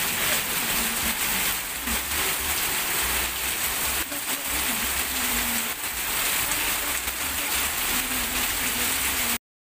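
Heavy rain pouring onto a paved street and puddles, a dense steady hiss with a low rumble underneath; it stops abruptly near the end.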